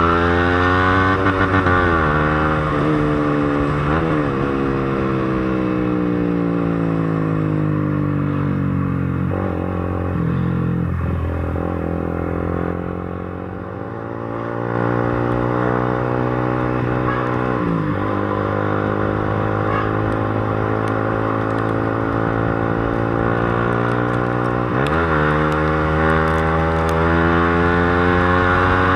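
Motorcycle engine running through a newly fitted aftermarket slip-on canister exhaust while being ridden. The engine note rises and falls with the throttle, with sudden pitch drops at gear changes about four seconds in, about two-thirds of the way in and near the end. It eases off the throttle briefly about halfway.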